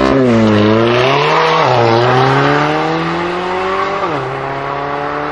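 Mercedes-AMG CLA 45's turbocharged four-cylinder accelerating hard, its pitch climbing and then dropping at three quick upshifts: right at the start, about a second and a half in, and about four seconds in. It grows fainter as the car pulls away.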